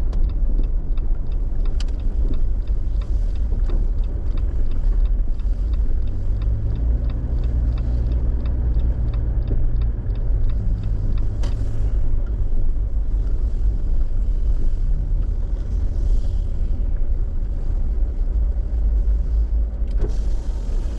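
Jeep driving along the road: a steady low rumble of engine and tyres.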